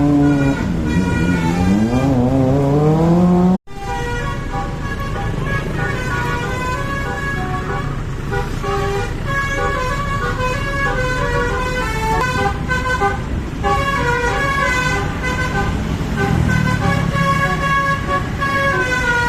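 Multi-tone musical bus horn ("telolet" horn) sounding: a wavering tone that dips and rises in pitch and breaks off suddenly about three and a half seconds in, then a melody of stepped horn notes.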